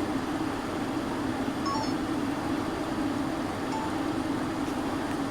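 Steady low rumble of road traffic, with a few faint short high chirps about two seconds in.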